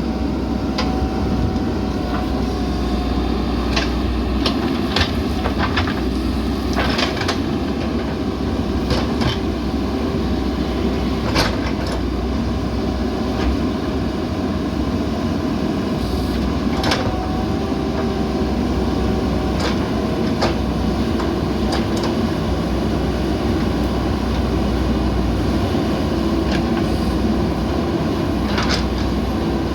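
Backhoe loader's diesel engine running steadily while it digs, with irregular sharp metallic clanks from the arm and bucket every few seconds.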